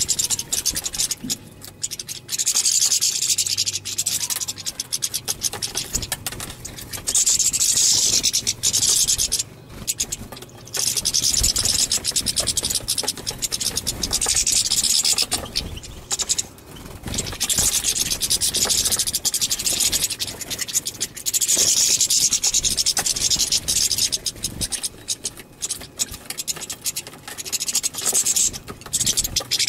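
European goldfinches singing: stretches of rapid, high twittering a few seconds long, one after another with short breaks between.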